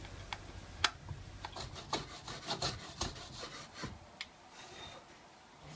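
A pine board being rubbed and scraped by hand to clean the waste off the ends of its joints: a few sharp clicks, then a quick run of irregular rasping strokes that eases off after about four seconds.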